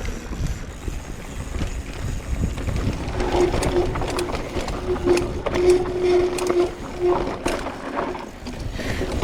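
Hardtail mountain bike descending a bumpy natural trail: a constant low wind rumble on the helmet-camera microphone, with scattered rattling knocks from the bike over the bumps. An on-and-off steady hum sounds in the middle.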